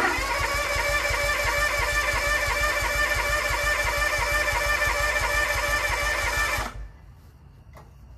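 Kawasaki FD731V liquid-cooled V-twin engine cranking over on its electric starter in a steady rhythm for about seven seconds without catching, then the starter stops. The engine is getting no fuel; the owner suspects a carburetor plugged from sitting or a bad vacuum fuel pump.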